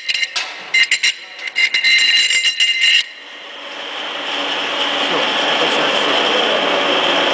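A flat steel ring rattling and clinking against a steel spindle shaft as it is slid along it, with a bright metallic ring, for about three seconds. After a short lull, a steady mechanical noise with a high edge comes in, grows louder and holds.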